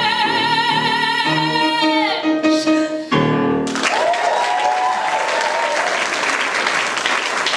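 A woman's voice holds the song's last note with vibrato over accompaniment chords, ending about three seconds in. The audience then applauds.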